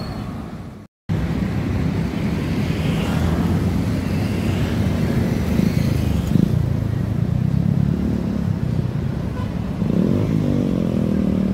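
City street traffic: motorcycles and cars passing with a steady engine rumble, the sound cutting out for a moment about a second in. Near the end, a motorcycle engine passes close, its note rising and falling.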